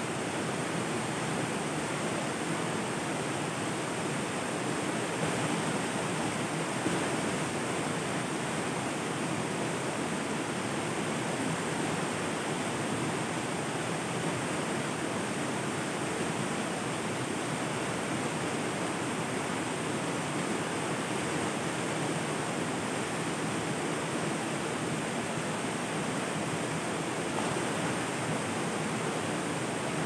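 River water flowing, a steady, unbroken rush of running water.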